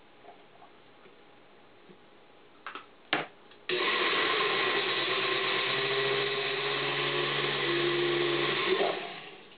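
Countertop blender running for about five seconds on a thick batter of baked squash and eggs. It comes on suddenly about four seconds in, just after a couple of clicks, runs with a steady motor hum and stops near the end.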